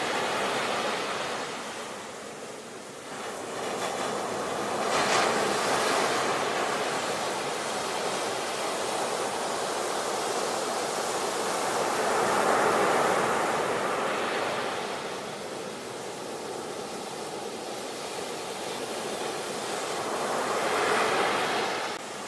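Sea waves breaking and washing up a shore, the surf swelling and falling away in slow surges every several seconds.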